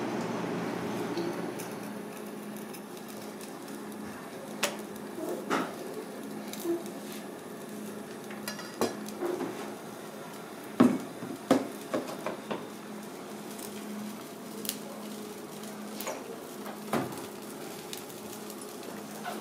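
Scattered clinks and knocks of kitchen utensils against dishes and pans, over a steady low hum, with a pair of louder knocks about eleven seconds in.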